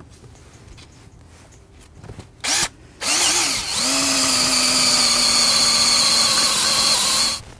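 Cordless drill boring a pilot hole for a bolt tap into the steel frame. The trigger is blipped briefly about two and a half seconds in. Then the drill runs for about four seconds, its whine wavering at first and then holding steady, before stopping suddenly.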